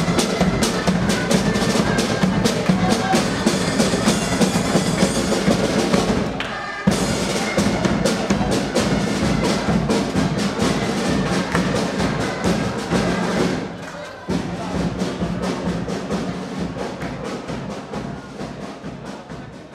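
A street band of drums, including a bass drum, playing a fast, steady marching beat. The playing breaks off briefly twice, then fades away toward the end.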